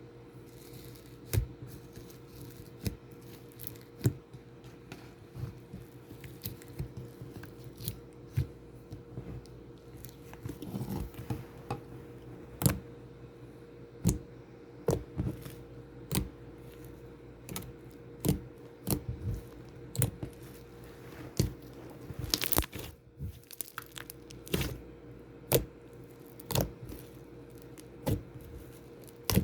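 Shaving cream slime being squeezed and stretched, giving irregular sticky pops and crackles, some in quick clusters. A steady low hum runs underneath.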